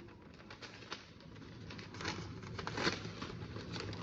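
Paper and tape rustling and crinkling as a taped paper package is handled, with scattered small clicks. It gets busier and louder from about halfway through.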